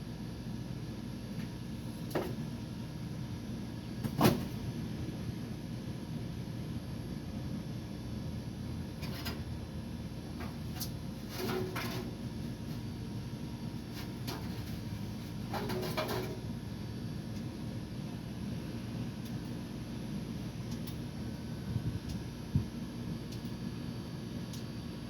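Scattered clicks and knocks of hands and tools working on an air-conditioner fan motor, the loudest about four seconds in, over a steady low hum.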